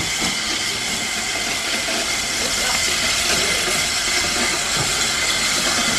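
Southern Railway S15 class 4-6-0 steam locomotive No. 847 hissing steam steadily as it runs slowly into the platform, with faint voices of onlookers.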